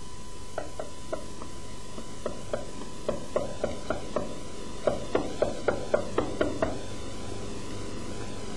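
Chef's knife chopping lemon zest into fine julienne on a cutting board: a run of light knife taps on the board. They come irregularly at first, quicken to about four a second, then stop about two-thirds of the way in.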